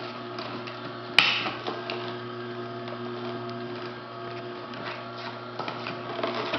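Electric juicer motor running with a steady hum as a beet is worked down the feed chute, with one sharp knock about a second in.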